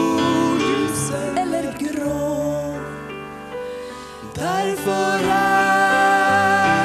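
A woman singing a slow Christian song with accompaniment, in long held notes. The phrase fades off about three seconds in, and a new phrase starts a little past halfway.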